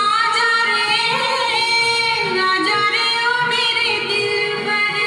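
Vinyl record playing on a Rotel FG servo belt-drive turntable: a woman's high singing voice with vibrato comes in at the start, over instrumental backing.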